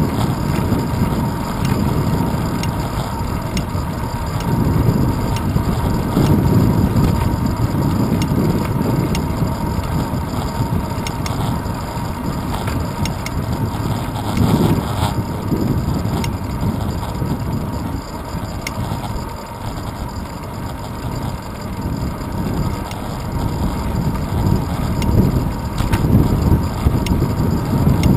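Wind buffeting the microphone of a handlebar-mounted GoPro Hero 2 on a moving bicycle, over the rumble of the tyres on the road. It swells and eases over a few seconds, with a faint steady high tone underneath.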